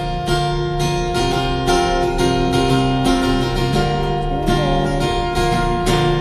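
Acoustic guitar strummed in a steady rhythm, playing chords between sung lines of a song.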